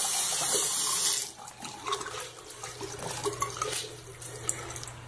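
Bathroom sink faucet running water into the basin, shut off about a second in. Then a wet Norwex Envirocloth microfiber cloth rubs over the porcelain basin in short, quieter strokes.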